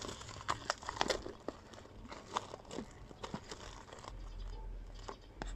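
Thin clear plastic wrapping film being peeled off a small earbud box and crinkled by hand: irregular sharp crackles, a dense run in the first second and a half, then more scattered ones.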